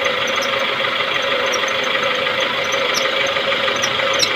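Old-model Maruti Suzuki Baleno's engine running with the steering held at full lock, and a steady 'kee' squeal from the power-steering pump drive belt. The heavily loaded pump pulley stalls and the loose belt slips round it.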